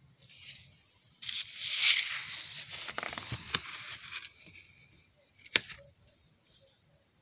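Stiff eco-printed watercolour paper pages rustling and crackling as they are handled and turned over for about three seconds, followed by one sharp tap.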